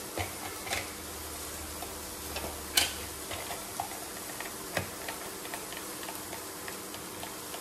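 Steak sizzling steadily in a grill pan, with scattered clicks and knocks as limes are pressed in a hand squeezer; the sharpest click comes about three seconds in.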